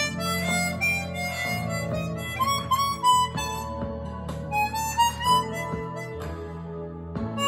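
Hohner 280-C Chromonica chromatic harmonica playing a melody of held notes, with a lower accompaniment of sustained chords underneath.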